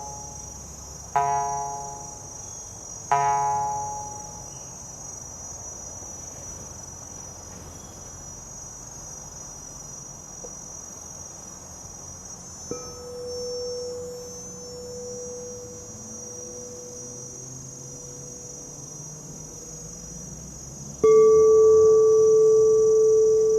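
Two plucked-string notes, a couple of seconds apart, ring out and decay over steady high insect chirring. About 13 s in, a soft sustained pure tone begins and fades slowly. Near the end a struck sound-bath instrument sounds a much louder pure ringing tone that is held.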